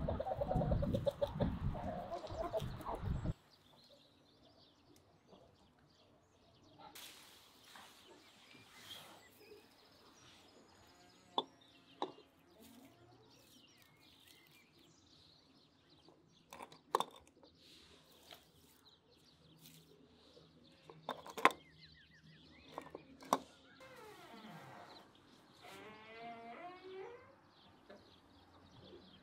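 Hens clucking loudly for the first few seconds, stopping suddenly. Then quieter: a few sharp clicks of eggs being set into a clay bowl, and a hen clucking again near the end.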